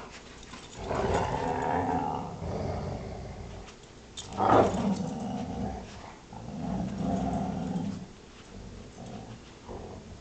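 Dogs growling in play during a tug-of-war over a rag, in long growling stretches broken by short pauses, with one short, louder outburst about halfway through.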